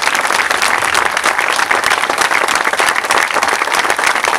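Crowd applauding: many people clapping steadily, without a break.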